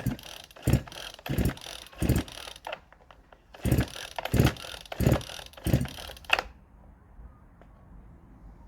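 Chinese MS360-clone chainsaw being pull-started: the recoil starter cord is yanked about ten times, in two runs of five with a short pause between, and the engine never catches.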